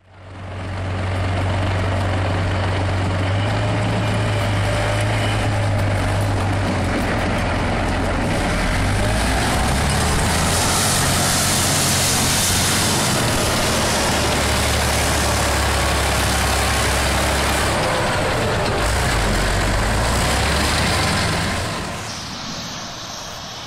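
BAT-2 tracked combat engineering vehicle's diesel engine running loud, its low engine note shifting as it drives. The sound drops away about 21 seconds in.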